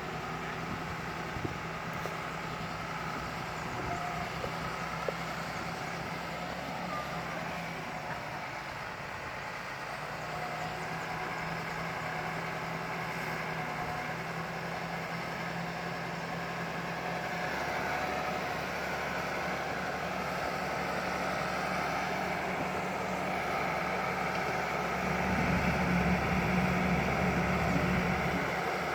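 Bulldozer's diesel engine running steadily as the machine works, growing louder and heavier near the end as it takes on more load.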